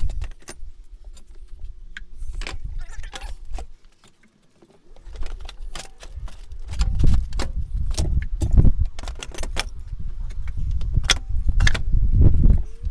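Metal tools and wooden molding-flask boards clinking, clattering and knocking as they are handled and put away in the storage space under a foundry molding bench. A low rumble comes and goes underneath, strongest in the second half.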